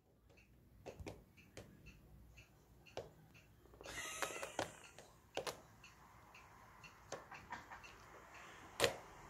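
Faint clicking and knocking: a light tick about twice a second, with irregular sharper clicks over it, a short rustling scrape about four seconds in, and one louder click near the end.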